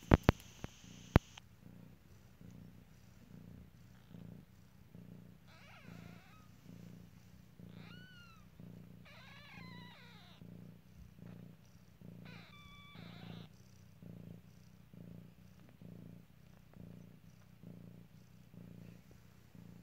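Somali cat purring steadily in an even rhythm while newborn kittens nurse. Four short, high squeaky calls from the newborn kittens come in the middle, and a few sharp clicks sound in the first second or so.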